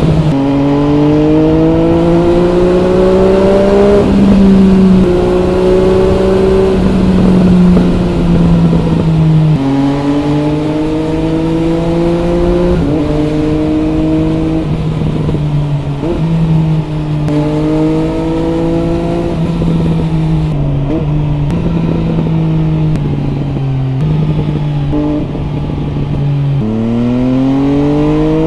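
MV Agusta Brutale 800 RR's 798 cc three-cylinder engine through an MV Agusta Corse trio exhaust with the dB killer fitted, pulling hard. The revs climb and then drop back about every three to five seconds as it changes gear, with another strong climb near the end.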